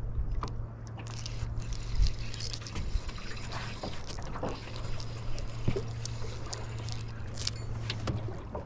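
Water lapping and trickling against a small boat's hull, with light clicks and knocks from handling fishing gear, over a steady low hum.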